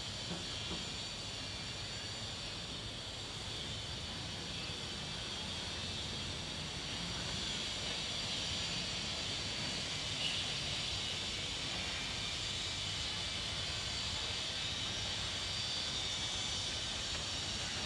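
Steady distant city traffic hum with a hiss over it, rising slightly about seven seconds in.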